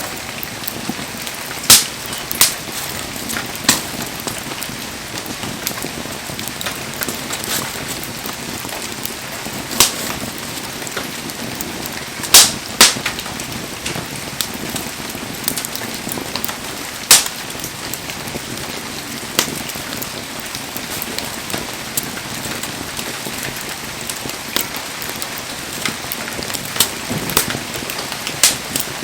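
Wood bonfire burning: a steady crackling hiss with sharp pops every few seconds, the loudest a little under halfway through and again past the middle.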